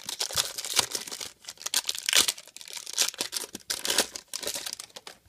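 Foil wrapper of a trading-card pack being torn open and crinkled by hand: a dense, irregular run of crackling rips, loudest about two seconds in.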